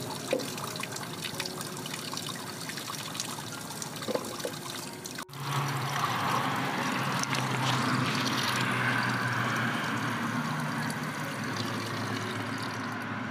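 Water running from an outdoor tap, first splashing into a plastic basin while hands handle meat in a copper pot. After an abrupt break about five seconds in, it pours louder into the copper pot as the meat is rinsed.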